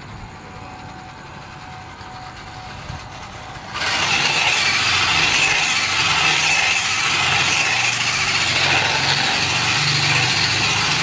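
Small R/C truck's electric motor and gears whirring while its tyres roll over tiled pavement, getting much louder and harsher about four seconds in as it drives at speed.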